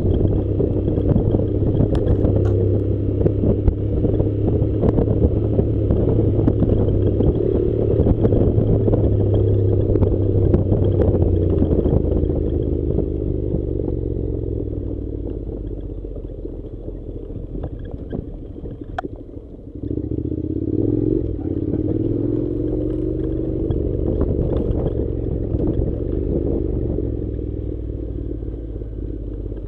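Honda NC700's parallel-twin engine running steadily as the motorcycle rides a gravel dirt road, with loose stones and bumps rattling through the ride. About two-thirds of the way through the engine note fades away, then comes back with a brief rise in pitch as it pulls again.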